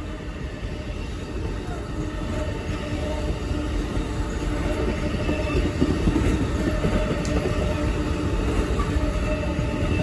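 Amtrak Auto Train passenger train rumbling past on the rails, with a steady low hum and a few faint steady tones, growing gradually louder as it comes on.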